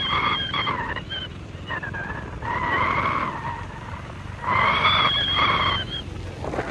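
Low road and wind rumble from riding on a motorcycle, overlaid by a series of five or six high-pitched, steady tones, each lasting up to about a second, on and off.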